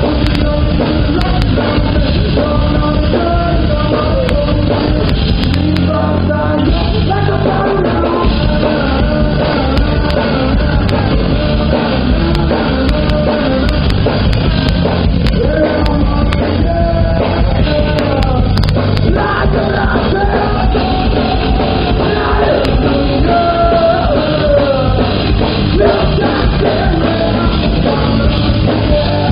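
Live rock band playing loud and steady: a male singer's voice over electric guitars and a drum kit.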